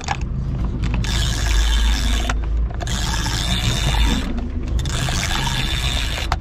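Fishing reel being cranked in three bursts of about a second and a half, with short pauses between, its gears whirring, as a heavy jig is worked. A steady low rumble runs underneath.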